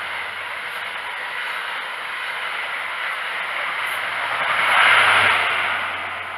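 Class 43 High Speed Train (InterCity 125) passing at speed, a steady rush of wheels and coaches that swells to its loudest about five seconds in and then fades.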